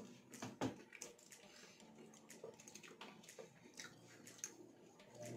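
Quiet eating sounds: many short wet clicks of chewing and lip-smacking on grilled isaw and liempo, with light taps as the food is handled on the plate, over a faint steady hum.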